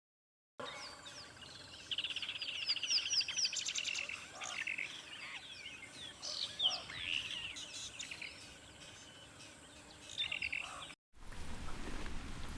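Several wild birds calling and singing at once, with overlapping chirps, whistled glides and fast repeated trills. About eleven seconds in the birdsong cuts off abruptly and gives way to a steady, rushing background noise.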